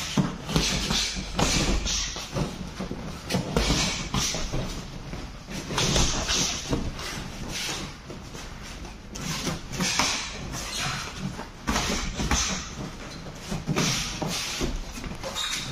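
Light kickboxing sparring: padded boxing gloves thudding against gloves and headgear, and bare feet stepping and shuffling on the mat. The strikes come in irregular flurries.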